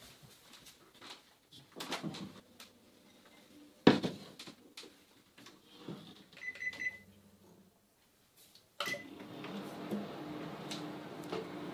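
A glass bowl set into a microwave oven and the door handled, with several clunks and one sharp knock, then a short keypad beep. In the last few seconds the microwave oven starts heating at 600 W and runs with a steady hum.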